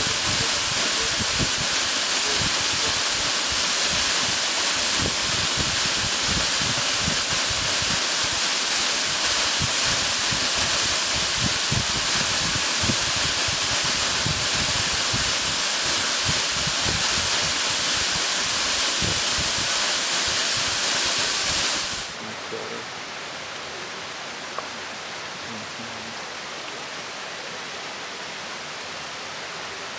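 Waterfall pouring, a steady loud rush of falling water. About 22 seconds in it falls to a quieter, thinner rush with less low rumble.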